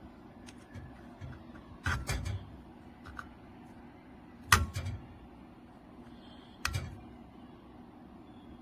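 A few separate knocks and clicks over quiet room sound: a cluster about two seconds in, the loudest single knock about halfway through, and another about two seconds later, with faint ticks between.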